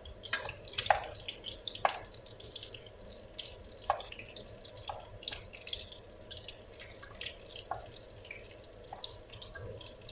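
Diced onion and garlic sizzling in hot oil in a pan, with a steady hiss and irregular crackles and pops, a few sharper pops in the first four seconds.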